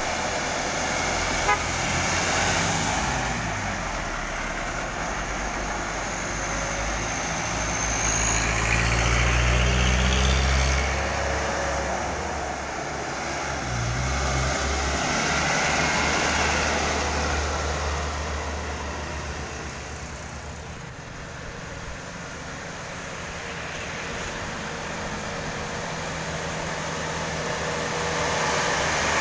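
Heavily loaded small diesel cargo trucks driving past one after another, engine sound swelling and fading as each goes by. A short horn toot sounds about a second and a half in.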